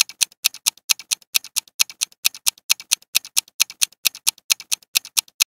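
Countdown timer sound effect: an even clock-like tick-tock, about four ticks a second alternating louder and softer, running while the answer timer counts down and stopping as time runs out.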